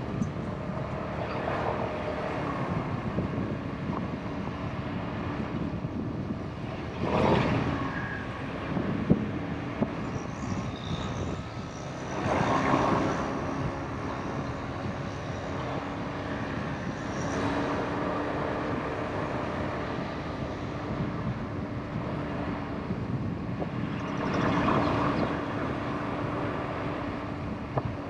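Motorbike running at a steady cruise, its engine hum under a haze of wind and road noise, swelling louder a few times.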